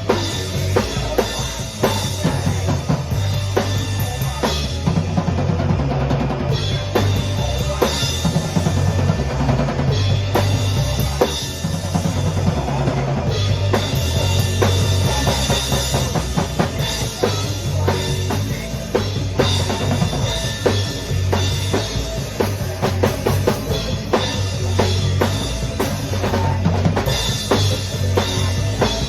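A band playing a song, with a drum kit (kick, snare and rimshots) driving a steady beat over a low bass line that steps between notes.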